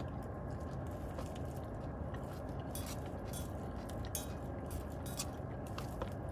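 Someone eating: a fork clicking and scraping against a plastic salad container, with chewing, over a steady low hum.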